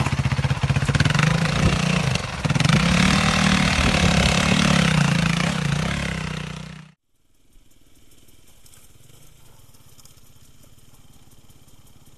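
Trail motorcycle engine revving unevenly at low speed over rocks, its pitch rising and falling. It stops abruptly about seven seconds in, leaving a much quieter steady background.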